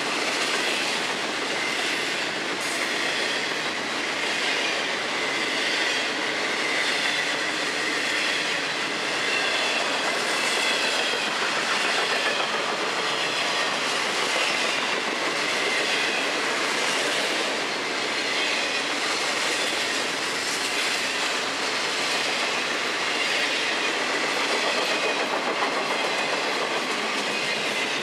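Double-stack intermodal freight cars of a Florida East Coast Railway train rolling past at steady speed: a continuous rumble of steel wheels on the rails, with a faint, wavering high squeal.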